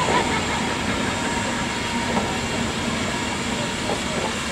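BR Standard Class 4MT 4-6-0 steam locomotive No. 75029 and its coaches at a platform, giving a steady hiss with a faint knock or two.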